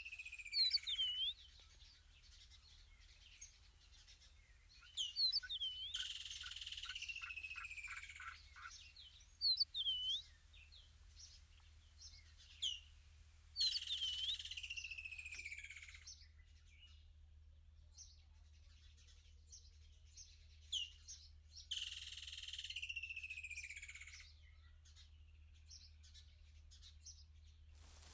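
Birds calling: a descending phrase of about two seconds, repeated every seven or eight seconds, with short sharp chirps in between.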